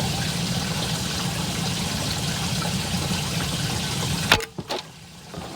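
Boat motor running steadily under a wash of water noise while trolling. About four seconds in, a sharp click, and the running sound cuts off suddenly.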